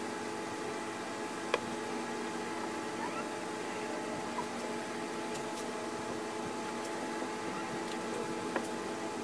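Steady mechanical hum made of several held tones that do not change, with a small click about one and a half seconds in and another near the end.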